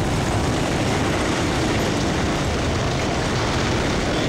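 A locomotive ploughing into a Renault Espace on a level crossing, crushing the car: a loud, steady rumble with no separate bangs.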